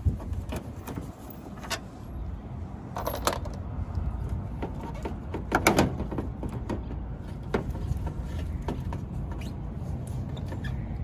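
Scattered plastic clicks, knocks and scrapes as a car's headlight housing is worked loose and pulled from the front end, the loudest knocks about halfway through. A low steady rumble runs underneath.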